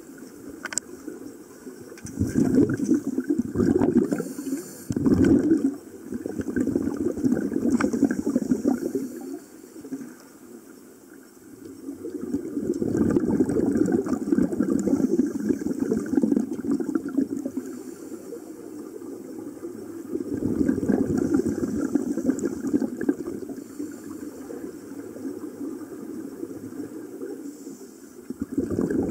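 Underwater sound of scuba breathing: exhaled bubbles gurgling out of a regulator in swells of one to several seconds, with quieter breaks between breaths.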